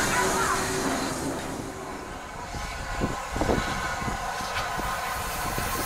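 Steam locomotive 34028, a rebuilt Bulleid West Country class, hissing steam as it moves slowly, then, about halfway through, a run of irregular knocks and clanks from the engine and its train.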